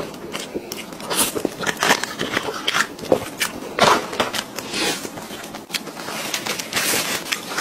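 Close-up eating sounds from a chocolate dessert taken off a spoon: a dense, irregular run of wet mouth clicks, lip smacks and chewing.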